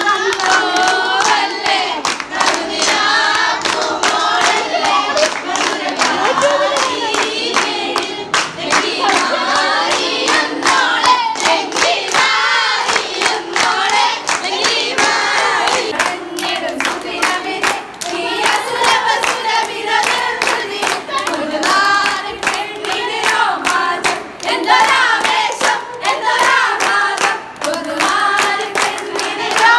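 A group of women and children singing together while clapping their hands in a steady rhythm.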